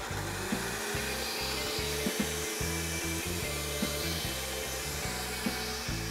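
Countertop blender running steadily, puréeing a thin sauce of cooked jalapeños, onion and garlic. Background music plays underneath.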